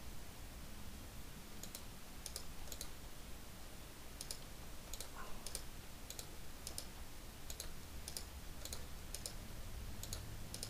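Faint, irregular clicks of a computer mouse and keyboard, many of them in quick pairs, over a low steady hum.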